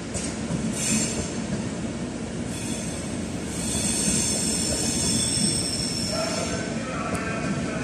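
Passenger train wheels squealing on curved track and points over a steady rumble of rolling coaches. There is a short high-pitched squeal near the start, then a longer, louder high squeal through the middle. It gives way to a lower-pitched squeal near the end.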